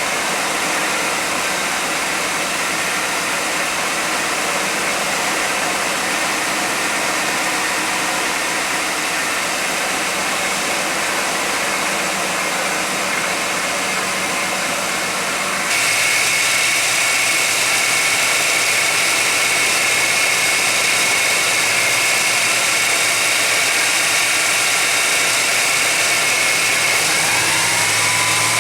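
1991 GMC Jimmy's engine idling steadily under a loud, even rushing noise. About halfway through, the sound steps up abruptly in level and a steady high whine comes in; near the end a short rising tone appears and then holds.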